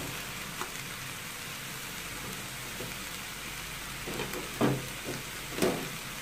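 Clams and frozen mixed vegetables sizzling steadily as they fry in a wok, with two louder metallic clanks near the end.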